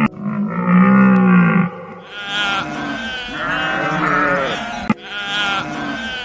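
A deep, drawn-out animal call for the first second and a half, then a sheep bleating over and over, with a sharp click about five seconds in.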